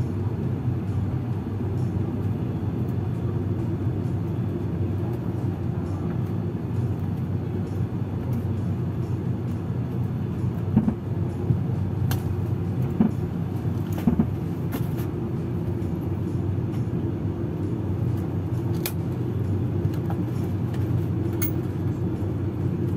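Twin turboprop engines and propellers of an ATR 42-600 running steadily at taxi power, heard inside the cabin as a low, even drone. A few short knocks come through from about halfway in.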